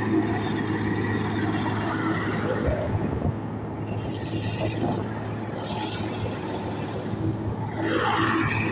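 Combine harvester running steadily while harvesting paddy rice: engine and threshing machinery making a constant drone, with a brief louder rush near the end.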